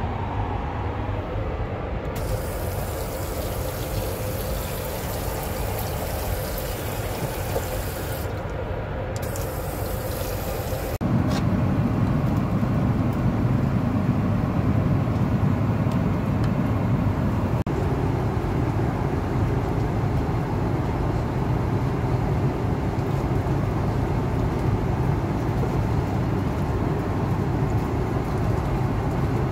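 Airbus A330-200 cabin noise in flight, a steady rush of air and engine sound. A few seconds in, a high hiss rises over it for about eight seconds, broken once. About eleven seconds in, the sound steps up to a louder, deeper rumble.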